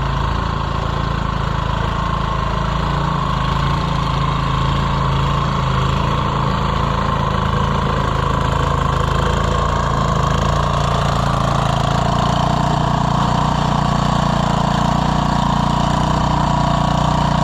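3.5 hp single-cylinder Briggs & Stratton engine on a 1979 Gilson-built Montgomery Ward snowblower, running steadily.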